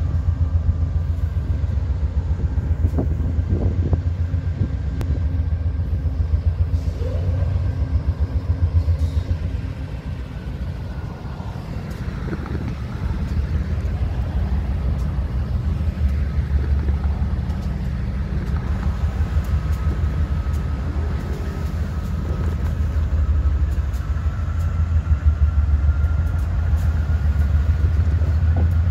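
Diesel locomotives of a freight train running as they approach and pass at low speed, a deep pulsing engine rumble, with a thin steady whine that creeps slightly up in pitch from about halfway through.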